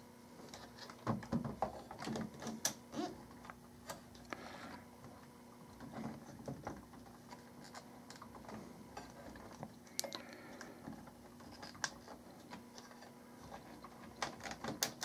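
Scattered small clicks, taps and knocks of a sealed 12 V lead-acid battery being handled and seated in a metal UPS battery cartridge, with wire spade connectors pushed onto its terminals. The clicks come in irregular clusters, busiest in the first few seconds and again near the end.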